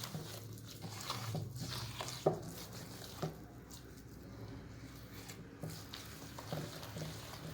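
Thick cake batter with desiccated coconut being stirred in a bowl: soft squishing with scattered light clicks and taps, the sharpest about two seconds in, over a low steady hum.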